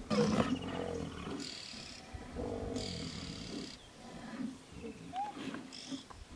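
White rhinos growling in a standoff: a deep growl in the first second, then two harsh, breathy calls about a second apart, with fainter low grunts after.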